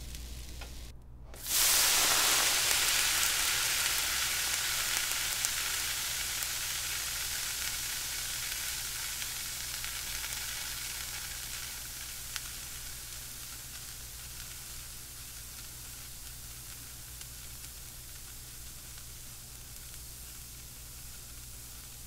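Water flash-boiling with a sizzle that starts suddenly and loudly after a moment's silence about one and a half seconds in. It slowly dies down over the next ten seconds or so to a quieter steady hiss.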